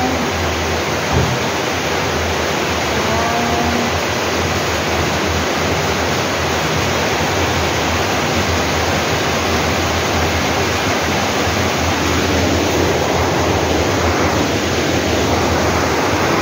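Rain falling steadily, a dense, even hiss.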